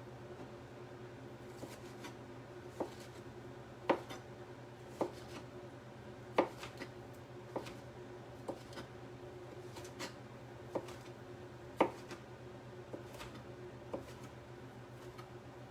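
Sharp knife dicing a tomato on a cutting board: short sharp taps of the blade on the board at an uneven pace, roughly one a second.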